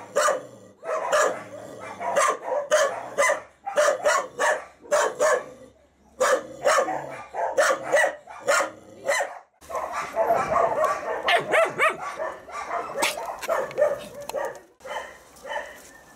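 Dogs barking over and over in short, sharp barks, about two to three a second; about ten seconds in, the barking turns denser and more continuous, several dogs at once.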